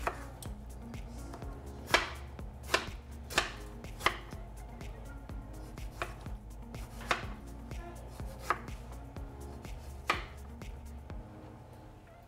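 A kitchen knife cutting through tomatoes and knocking on a wooden cutting board: a series of sharp, irregularly spaced chops.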